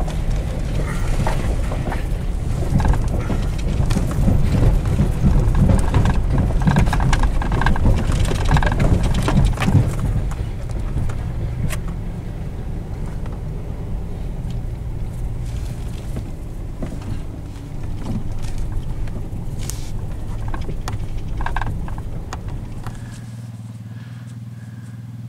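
Vehicle driving slowly up a rough, rocky dirt track, heard from inside the cabin: engine and tyre rumble with frequent knocks and rattles as it jolts over the rocks. Near the end the sound drops to a quieter steady hum.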